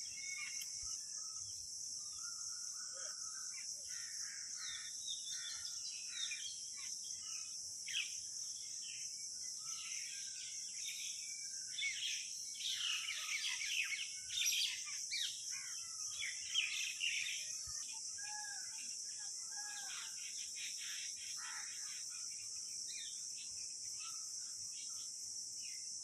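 A steady, high-pitched chorus of insects with many small birds chirping and calling over it, the birdsong busiest and loudest in the middle.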